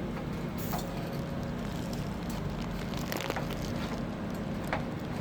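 Mutton crackling on a grill: scattered short crackles and clicks over a steady mechanical hum.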